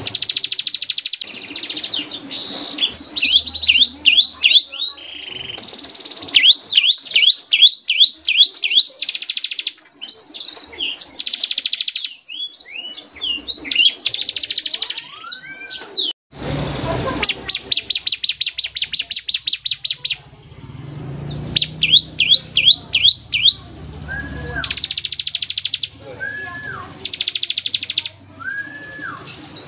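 Bar-winged prinia (ciblek) singing loudly in rapid bursts: fast machine-gun-like runs of repeated high notes mixed with quick sweeping chirps, with short pauses between phrases.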